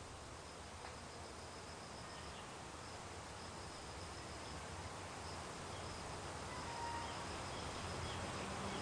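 Faint outdoor ambience: a steady hiss with an insect's high, rapidly pulsing trill running through it, the hiss growing slowly louder toward the end.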